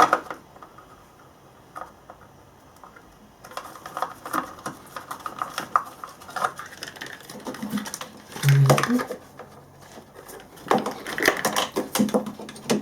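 Hands handling a small plastic box and tape, with scattered clicks, taps and rustles that start a few seconds in.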